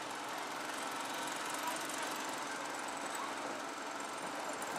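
A boat engine running at idle: a steady mechanical noise with no pauses.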